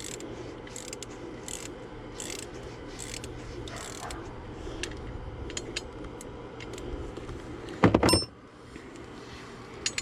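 Ratchet wrench clicking in short repeated strokes, roughly one stroke every three-quarters of a second, turning bolts loose. About eight seconds in comes one loud metallic clank with a brief ring.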